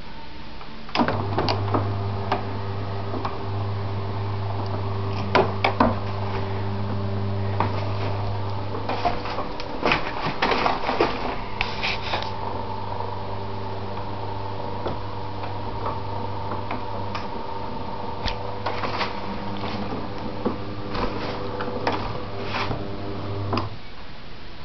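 A small electric motor runs with a steady hum, switching on about a second in and cutting off near the end. Scattered clicks and knocks sound over it.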